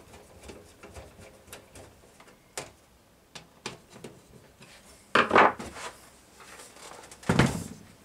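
Light clicks of a screwdriver driving screws into a plastic box fan's grille, then two louder clatters as the plastic fan is handled and set upright on a wooden workbench.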